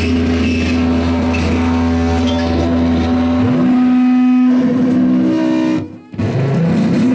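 Live electronic noise music from synthesizers and effects pedals: a loud steady drone with a low bass tone that cuts out about three and a half seconds in, followed by sweeping pitch glides. The sound drops out abruptly for a moment about six seconds in, then comes back as warbling tones.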